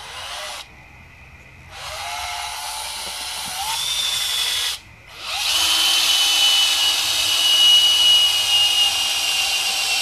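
Cordless drill pre-drilling screw holes into a 2x4 pine frame. Three runs: a brief burst at the start, one of about three seconds, then a longer one from about halfway in. Each opens with a rising whine as the motor spins up.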